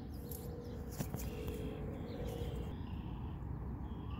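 Outdoor pond-side ambience: a steady low rumble with a faint steady tone, a single sharp click about a second in, and faint bird calls.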